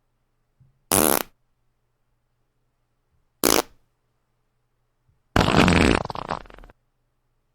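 A sound effect heard three times with silence between: two short bursts about a second and three and a half seconds in, then a longer one lasting just over a second that fades out near the end.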